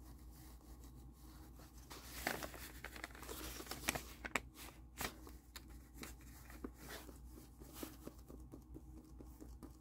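Faint rustling, crinkling and small clicks of a clear plastic sheet being handled and pressed with fingers, scattered from about two seconds in.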